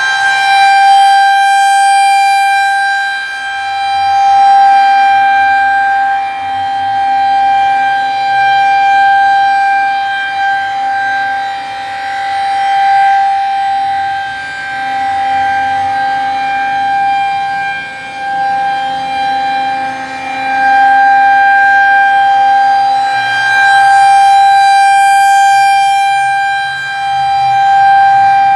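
Outdoor tornado warning siren sounding during an equipment test: a loud, steady wail held on one pitch that swells and fades every few seconds.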